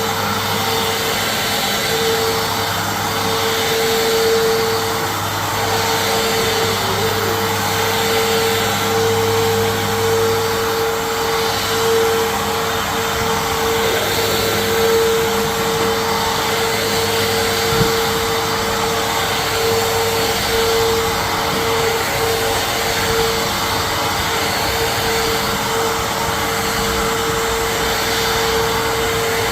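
Phantom Fury dual-cyclone vacuum cleaner running steadily while it picks up spilled coffee, with a constant whine from its motor over the rush of air.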